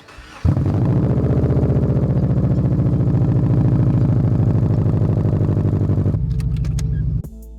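Straight-piped 7.3-litre V8 turbo-diesel engine running loud through its open exhaust with a rapid, even pulse. It comes in sharply about half a second in and drops off abruptly about six seconds in.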